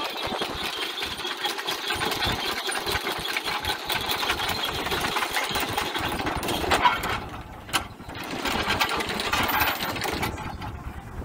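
A small motor running with a fast mechanical rattle.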